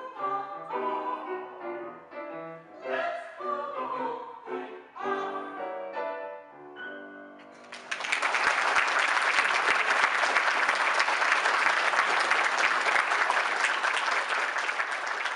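Singing with musical accompaniment ends on a held final note about seven seconds in, then an audience applauds steadily for the rest of the time.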